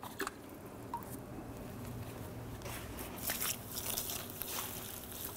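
Acid-and-salt-water solution poured from a small can onto a bed of dry sawdust, which soaks it up with soft, irregular crackles over a faint low hum.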